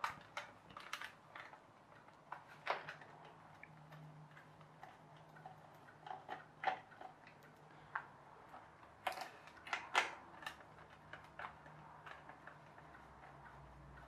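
Hands handling a plastic toy car on a hardboard board: irregular light clicks and taps of plastic, with a few sharper knocks.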